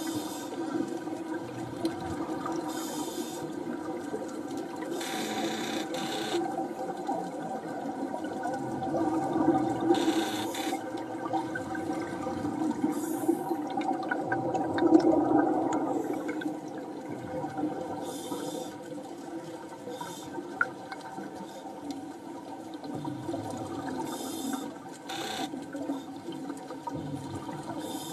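Underwater ambience: scuba divers' exhaled bubbles rushing up in short bursts every few seconds, over a steady low hum.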